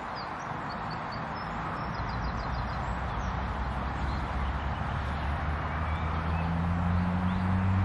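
Small birds chirping in short twittering calls over a steady outdoor hiss. From about five seconds in, a low engine hum, such as a passing motor vehicle's, grows louder toward the end.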